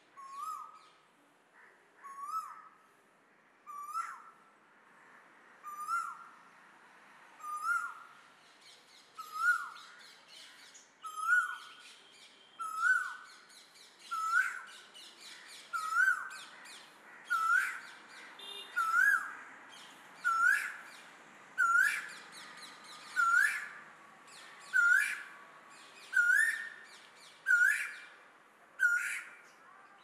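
Male Asian koel giving its repeated rising 'ku-oo' call, about one note every one and a half seconds. The notes grow louder and come slightly faster as the series goes on.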